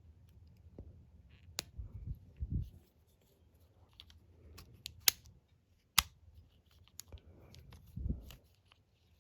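Small clicks and soft knocks of a clear practice padlock being handled and taken apart as a pin is worked out of it. Two sharp clicks about five and six seconds in are the loudest.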